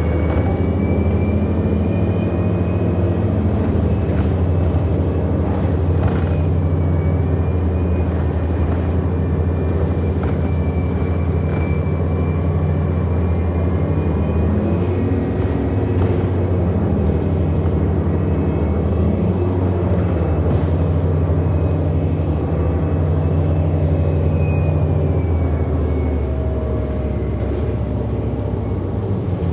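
Cabin of a 2008 Orion NG HEV hybrid-electric city bus under way: a steady low drone with a thin high whine that drifts up and down in pitch, plus scattered light rattles.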